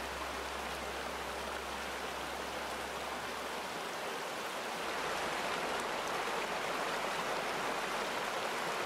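Shallow rocky creek flowing over stones, a steady rushing babble of water, with a low rumble of road traffic underneath that drops away about halfway through.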